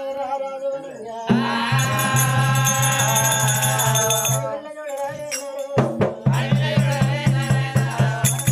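Oggu katha folk music: a brief sung line, then a long held note under jingling bells. From about six seconds in, a steady drum beat of about three strokes a second comes in, with the jingling going on.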